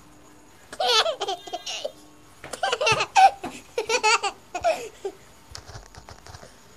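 A baby laughing and giggling in three short bouts, starting about a second in and dying away near the end.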